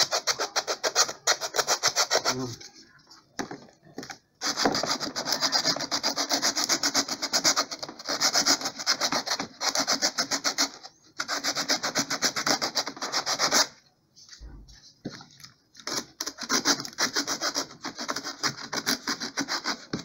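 Folded coarse sandpaper rubbed rapidly back and forth inside a jingle slot of a wooden pandeiro rim, smoothing the cut edges. The strokes come in four runs broken by short pauses.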